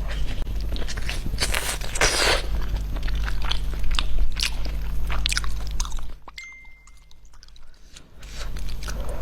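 Close-miked eating: a person biting, crunching and chewing food in quick, irregular bites over a steady low hum. The sound drops almost to silence about six seconds in for roughly two seconds, with a short thin tone, then the chewing resumes.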